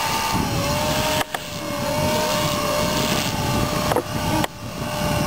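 Align T-REX 250 electric RC helicopter hovering low: a steady high whine from its motor and rotor, wavering slightly in pitch as the rotor load shifts.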